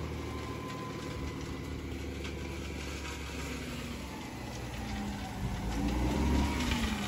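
Dump truck's diesel engine running steadily with the bed raised for tipping; about five seconds in its pitch rises and dips and the sound grows louder.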